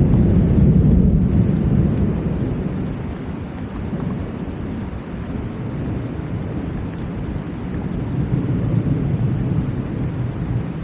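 Steady summer rain falling with a low rumble of thunder. The rumble is loudest at the start, fades over the next few seconds and swells again near the end.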